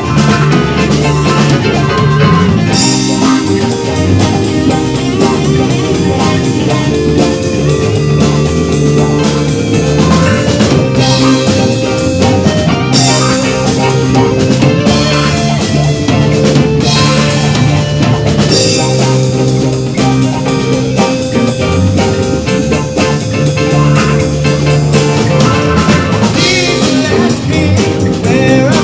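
Live rock band playing an instrumental passage of an original song: a drum kit keeping a steady beat, with electric guitars, bass guitar and keyboards. Brighter, cymbal-heavy stretches come back about every eight seconds.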